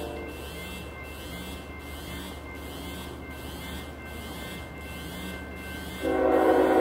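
Approaching train's locomotive horn: a quieter stretch of low rumble with a rhythmic ringing in the background, then the horn's chord sounding loudly again about six seconds in.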